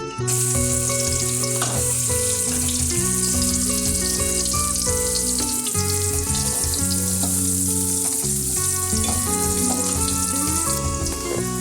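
Food sizzling as it fries in hot oil in a pan, a steady hiss that sets in abruptly just after the start.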